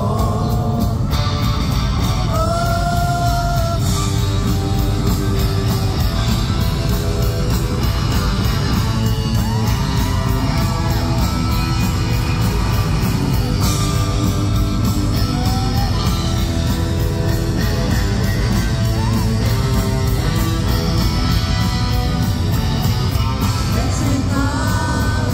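Live rock band playing loud, a man singing and yelling over electric guitar and drums, in a large hall.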